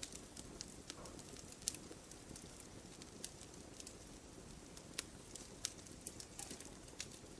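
Wood fire crackling: irregular sharp pops and snaps over a low steady rush, with one louder snap a little under two seconds in.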